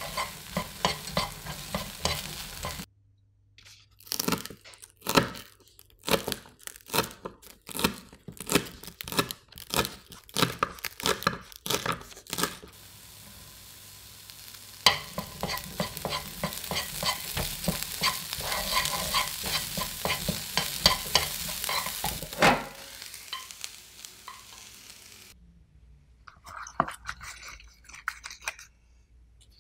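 Corn kernels sizzling as they fry in a pan, stirred with a wooden spatula. From about 3 s to 12 s comes a run of separate sharp knocks, typical of a knife chopping scallions on a board, and then a long stretch of steady sizzling and stirring. Near the end lettuce leaves rustle faintly.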